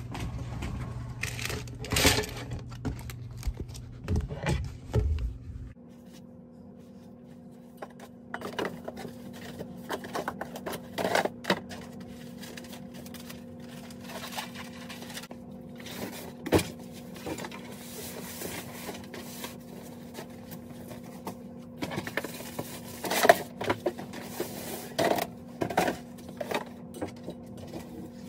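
Room-cleaning noises: irregular knocks, bumps and scrapes as things are moved about and a floor brush works by the wall, over a steady low hum. The background changes abruptly about six seconds in.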